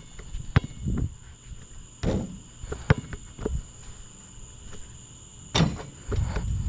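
Basketball play on a court: irregular thuds and sharp knocks from the ball bouncing and from footsteps, a few seconds apart, with a steady high-pitched buzz underneath.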